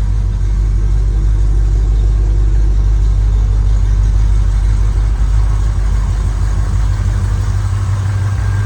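Chevrolet C10 pickup engine, fed by a Holley Sniper EFI, running at a steady idle with a deep even rumble.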